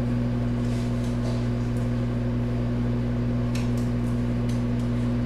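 Microwave oven running while heating food: a steady electrical hum. A few faint light taps come about three and a half to four and a half seconds in.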